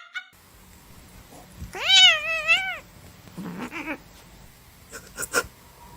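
Domestic cat meowing: one loud drawn-out meow about two seconds in, then a fainter, lower call a second later. A few short clicks follow near the end.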